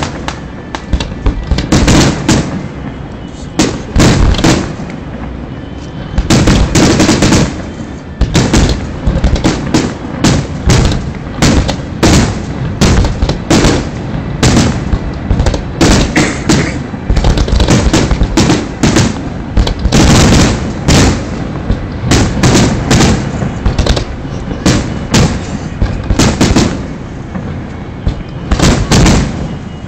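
Fireworks display: aerial shells bursting in quick succession, a dense, loud series of bangs that keeps going with hardly a pause.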